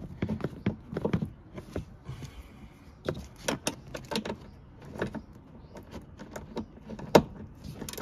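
Socket ratchet wrench clicking in short, irregular runs as it tightens a car seat belt's lower anchor bolt, with one sharper click about seven seconds in.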